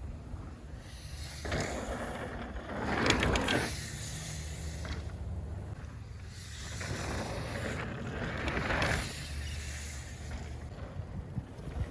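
Steady rushing, rumbling noise of movement through air, swelling about three seconds in and again near nine seconds.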